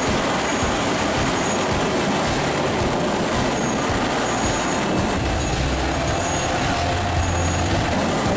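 Large industrial wood shredder running steadily, its engine rumbling under a constant grinding noise, with faint short high tones coming and going.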